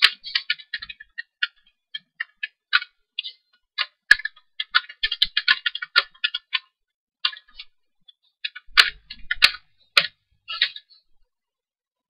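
Typing on a computer keyboard: irregular runs of key clicks with short pauses, stopping near the end.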